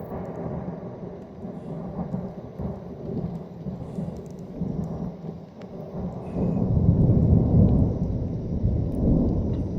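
Thunder rumbling over steady rain; the rumble swells much louder about six seconds in and stays strong.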